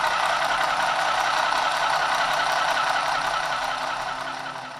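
Handheld single-thread sewing machine running on its mains adapter: its small electric motor buzzes with a fast, even clatter of the needle, then dies away and stops at the end.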